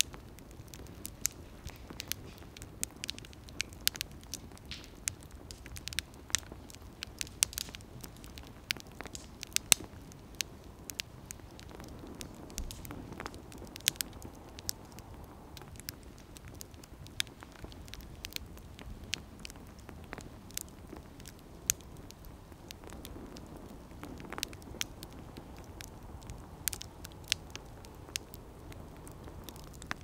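Wood fire burning in a fire stand, crackling with many sharp, irregular pops over a steady low rumble.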